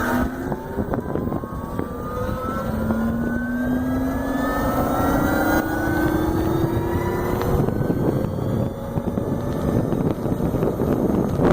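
Electric drivetrain of a 2015 Zero SR motorcycle whining under acceleration, its pitch rising steadily until it fades about three-quarters of the way through. Wind rushes over the microphone throughout.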